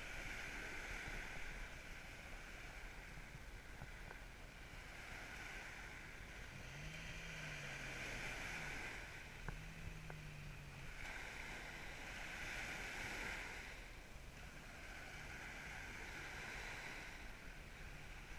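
Surf washing up the beach in swells that rise and fade every few seconds, with wind rumbling on the microphone. Midway through, a vehicle engine rises and falls faintly in pitch under the surf as the 4x4 creeps the boat trailer up the sand in low range.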